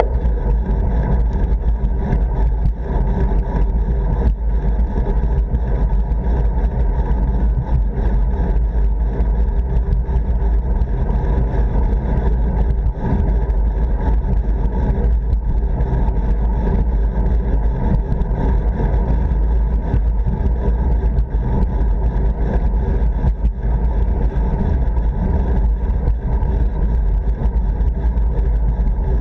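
Steady, loud wind rumble on the microphone of a road bicycle's handlebar-mounted camera while riding.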